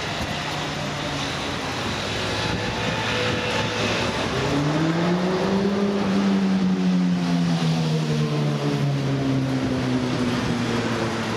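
An engine passing: a steady hum that grows louder, its pitch rising about four and a half seconds in and then sinking slowly as it goes by.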